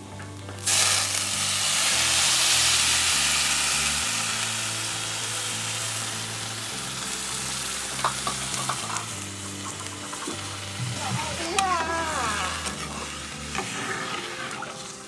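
Water poured into a hot aluminium pot of rice fried in oil, setting off a sudden loud hiss and sizzle that slowly dies down to a simmer. A metal spoon scrapes and stirs in the pot later on.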